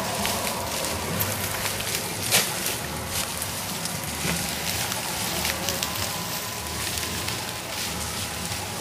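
Wind rustling tall foxtail grass close to the microphone: a steady crackling hiss with a low rumble beneath and a few sharp clicks, the loudest about two and a half seconds in.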